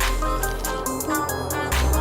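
Electronic music with a heavy deep bass, regular drum hits and held synth notes.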